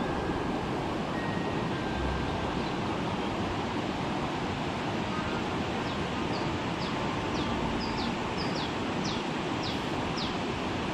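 Steady rushing of a flowing river close to the microphone. Starting about six seconds in, a bird calls a quick run of about a dozen short, high notes, two to three a second.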